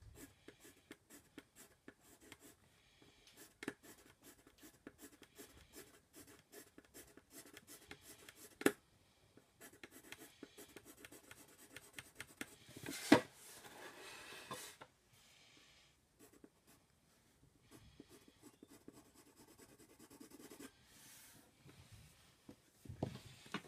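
Coloured pencil shading on paper in rapid short scratchy strokes, with a couple of sharper, louder knocks about nine and thirteen seconds in. The strokes thin out after about fifteen seconds, and a dull low knock comes near the end.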